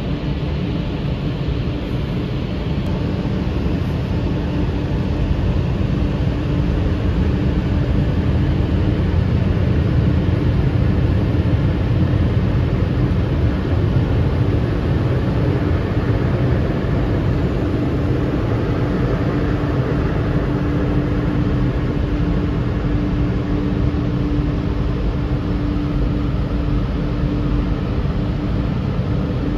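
Automatic tunnel car wash heard from inside the car: a steady rumble of water jets and rotating brushes working over the car, with a constant machinery hum.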